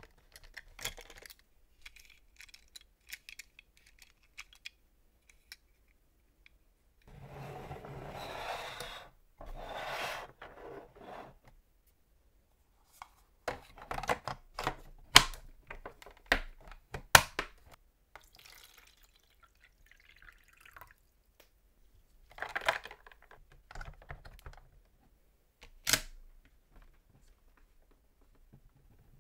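Hard plastic toy fire truck playset being handled: scattered clicks and knocks as the ladder and parts are moved, with a few stretches of scraping lasting a second or two. Two sharp clicks stand out a little past the middle.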